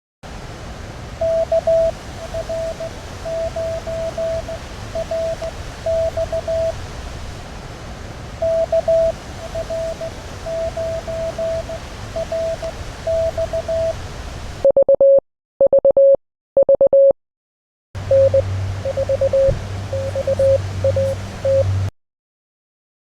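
Morse code callsigns received on an amateur radio: a keyed beep in dots and dashes over steady band hiss, the same callsign sent twice. Then a louder, lower-pitched signal is keyed in short bursts, and near the end another signal comes in over a low hum.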